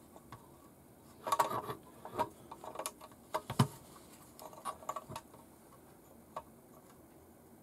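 Light clicks and taps of a hex driver and small screws against the metal chassis of an RC truck kit as the transfer box is screwed in. The ticks come in small clusters, about a second and a half in and again around five seconds in, with the sharpest click about three and a half seconds in.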